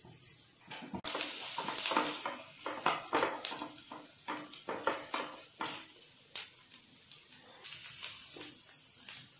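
Chopped garlic sizzling in melted butter in a frying pan, starting suddenly about a second in. A wooden spatula scrapes and knocks against the pan in irregular strokes as it stirs.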